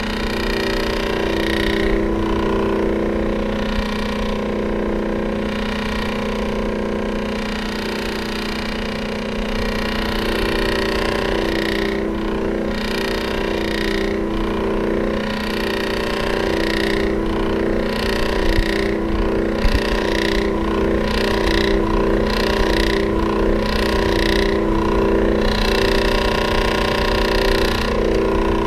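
Electric fan running with a steady motor hum over a low rumble, with faint clicks through the middle stretch.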